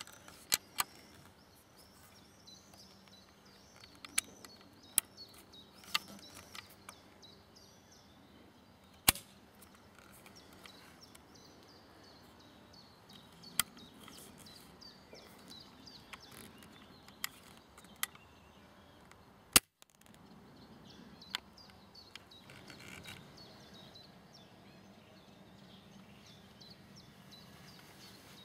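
Kentucky flintlock rifle's lock being worked by hand: sharp metallic clicks, about a dozen at irregular intervals, a few of them much louder snaps, as the cock and frizzen are moved.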